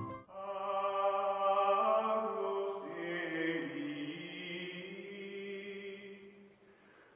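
Background music of slow choral chanting: long, sustained held notes that shift pitch slowly and fade out near the end.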